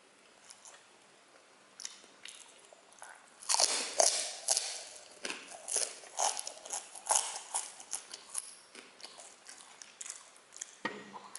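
A person chewing and crunching spicy chicken feet close to the microphone, with wet mouth sounds. Faint at first, then from about three and a half seconds a dense run of loud crunches that thins out toward the end.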